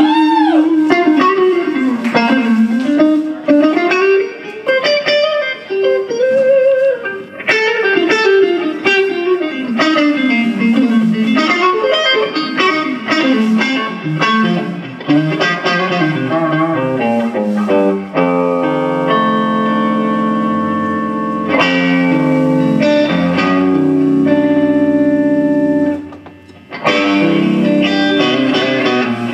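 Electric blues trio playing live with no singing. The electric guitar leads with bending, sliding notes over bass and drums, then moves to held chords from just past the middle. The band drops out briefly near the end before coming back in.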